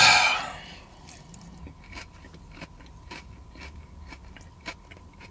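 A person chewing a mouthful of lettuce salad with chicken and mozzarella, the crisp leaves crunching in small irregular clicks. It opens with a short, loud rush of noise as the bite is taken.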